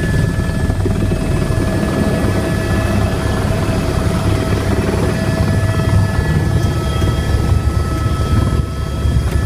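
Airbus AS350 Écureuil helicopter's single turbine and rotor running steadily, heard from inside the cabin: a dense low rumble with a steady high turbine whine over it.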